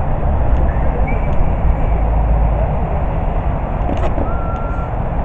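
Steady low outdoor rumble with a few brief, faint, thin high tones over it.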